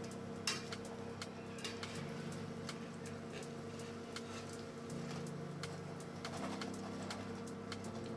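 Battered bajji deep-frying in hot oil, the oil crackling with many sharp clicks, and a steel wire skimmer clinking against the pan as the fritters are turned and lifted out. One louder click comes about half a second in.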